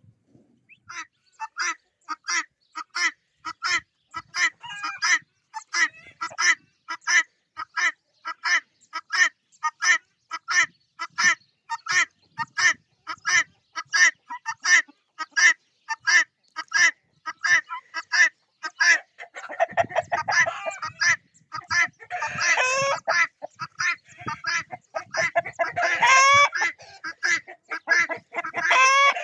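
Guinea fowl calling: a long, evenly spaced run of short calls, about two to three a second, then more birds join in about two-thirds of the way through with louder, longer calls overlapping.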